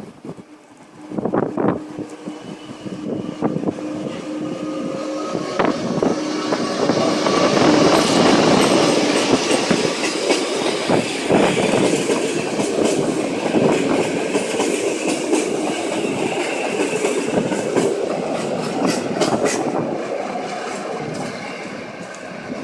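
Passenger train running past, its wheels clicking and clattering over the rail joints; the sound builds to its loudest about a third of the way in and slowly eases off toward the end.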